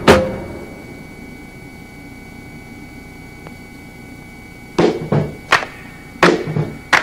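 Helicopter headset-intercom audio: a sharp pop at the very start, then a low steady hiss with faint humming tones, and several short bursts of noise from about five seconds in.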